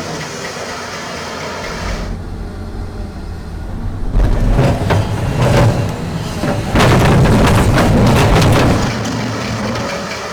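Large Doosan excavator's diesel engine running hard, then from about four seconds in a loud rumbling clatter of dirt and rock pouring from the bucket into a steel dump-truck bed, lasting about five seconds before easing off.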